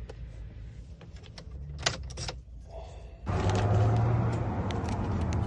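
A few sharp clicks, then about three seconds in a 2007 Chevy Tahoe starts up suddenly and keeps running with a steady low hum.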